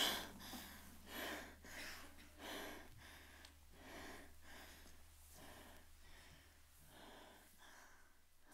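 A person breathing in short, rhythmic gasps, about two a second, fading gradually.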